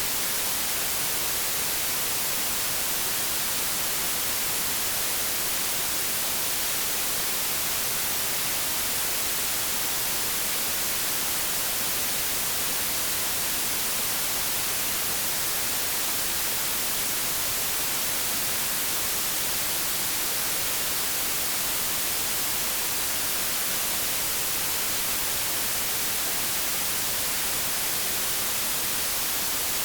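Steady white-noise static: an even hiss, strongest in the high range, that does not change.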